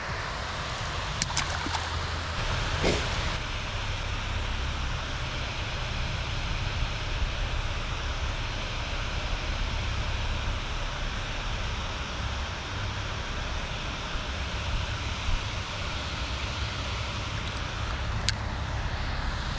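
Steady low rumble with an even hiss, with a few sharp clicks about a second or two in and again near the end.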